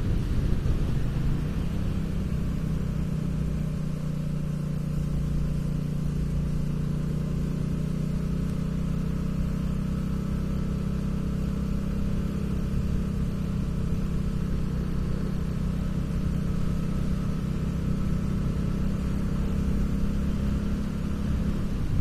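Motorcycle engine running at a steady cruising speed, heard from the rider's seat. It is a low, even drone whose pitch settles about a second in and then holds.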